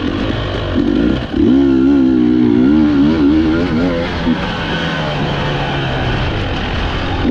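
Enduro dirt bike engine revving up and down as the throttle is worked, heard up close from the rider's position. It drops off briefly about a second in, then climbs and wavers hard for a few seconds before settling to a lower, steadier note.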